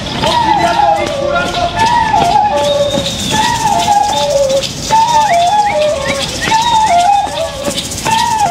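Cane transverse flute playing a short falling tune over and over, each phrase about a second and a half long, with sharp clicks sounding along with it.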